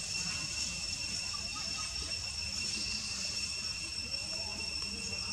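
A steady, unbroken high-pitched insect chorus drones over a faint low rumble.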